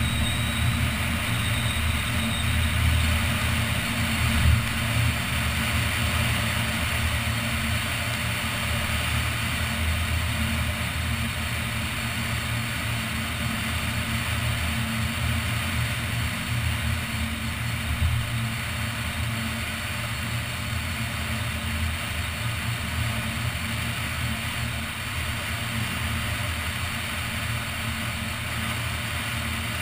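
Car driving at highway speed heard from a camera suction-mounted on its roof: a steady low rumble of wind and engine with a hiss of tyres on wet pavement.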